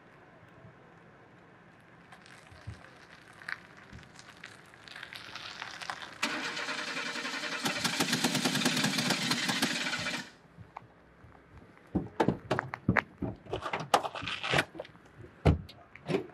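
Small Fiat hatchback driving up and pulling to a stop, its engine and road noise building over a few seconds to a loud rush that cuts off abruptly. Then a series of sharp clunks and knocks as its doors are opened.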